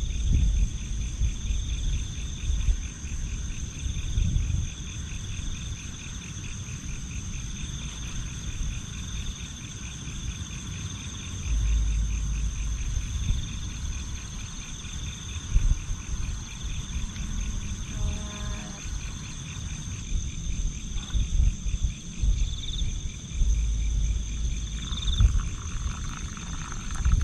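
A steady chorus of insects trilling in several high pulsing tones, with wind buffeting the microphone in low rumbling gusts, strongest about halfway through and again near the end. A short pitched call sounds briefly about two-thirds of the way in.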